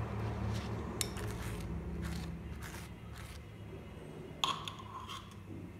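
Table knife scraping mayonnaise across a slice of white bread in a few short strokes, over a low steady hum, with a sharper click about four and a half seconds in.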